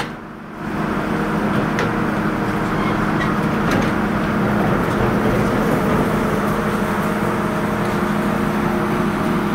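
Sawmill machinery running steadily with a constant hum, with no cut being made. The sound drops briefly near the start, then holds even.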